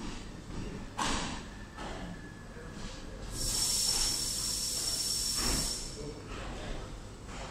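FGC Núria rack-railway train arriving slowly at the platform. A couple of clunks come in the first two seconds. About three seconds in, a loud hiss of released air with a thin steady whistle starts and lasts about two and a half seconds, over a low rumble.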